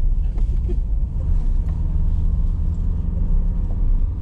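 Motor vehicle running at a steady pace: a continuous low engine drone with road rumble.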